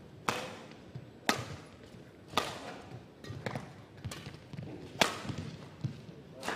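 Badminton rally: sharp cracks of rackets striking the shuttlecock, about once a second, each ringing briefly in a large hall.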